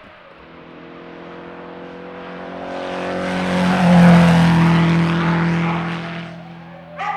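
A motor vehicle passing by: its engine and tyre noise grow steadily louder, peak about four seconds in, then fade away.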